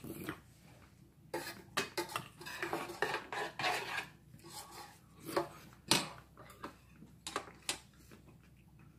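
Metal spoon clinking against a stainless steel bowl while scooping food: a run of irregular clinks through the middle, the loudest about six seconds in.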